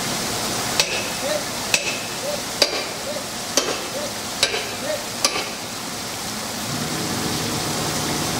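Six sharp strikes, each with a brief ring, about one a second, as a forcible-entry tool is hammered against a door to break it open, over a steady hiss.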